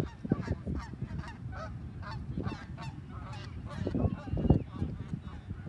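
A bird flock calling: many short calls, several a second. Low rumbling thumps on the microphone about four seconds in are the loudest part.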